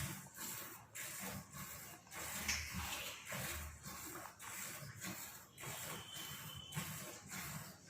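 Buffalo being milked: milk squirting into a bucket in rhythmic hissing strokes, about two a second.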